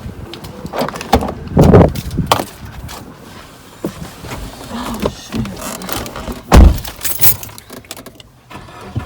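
Handling noises and knocks with two heavy thumps, about two seconds in and again near seven seconds, as someone gets into a car and shuts its door.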